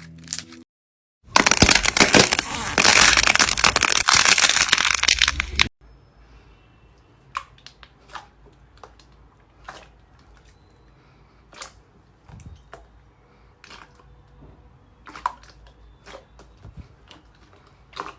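Crunchy slime being squeezed and pressed by hand: a loud, dense crackling for about four and a half seconds, then much quieter with single soft pops and clicks every second or two.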